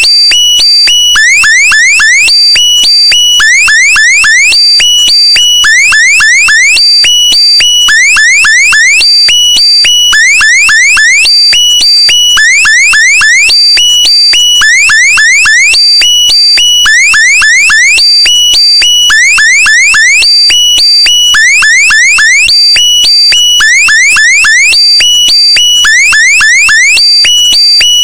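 A looped electronic meme sound effect, loud and alarm-like. A cluster of quick rising chirps over steady beeping tones repeats evenly about every one and a half seconds.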